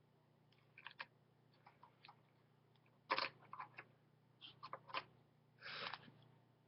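Plastic Lego pieces being handled and pressed together: a scatter of small sharp clicks, the loudest about three seconds in, and a short rustle near the end.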